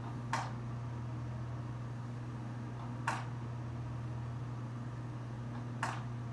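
Steady low hum with three short hissing puffs, about three seconds apart.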